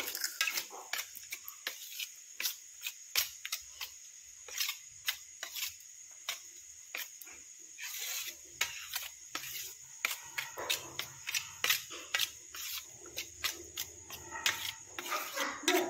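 Metal spoon stirring a wet bread-and-semolina batter in a steel bowl, clinking and scraping against the bowl in quick, irregular taps.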